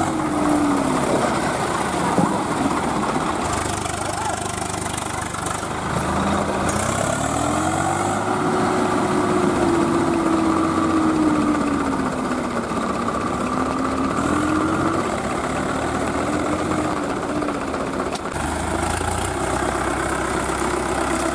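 Diesel tractor engines running, the engine note rising and falling several times as the throttle is opened and eased off, over a steady hiss.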